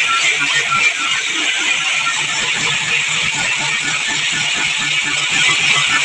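Background music led by strummed guitar, with a steady beat.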